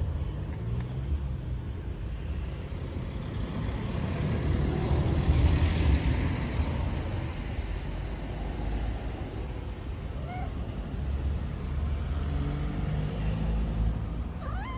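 Road traffic: vehicle engines running with a steady low rumble, one vehicle passing close and swelling loudest about five seconds in.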